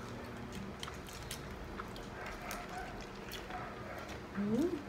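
Cooked shrimp being peeled by hand and eaten: scattered small crackles and clicks of shells breaking, with wet chewing. A short rising hum of a voice comes near the end.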